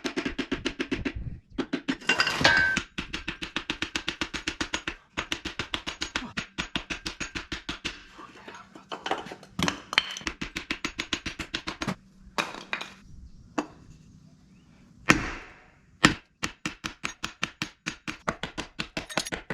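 Rapid hammer blows on a seized piston in a Cummins C160 engine block, about four or five sharp strikes a second, in runs broken by short pauses. The piston is stuck fast and does not move.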